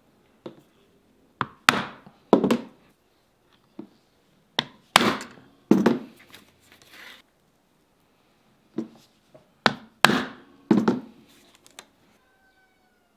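Hand hole punch being struck to punch brogue perforations through a cardboard shoe pattern: a dozen or so sharp knocks in clusters of two to four, with pauses between.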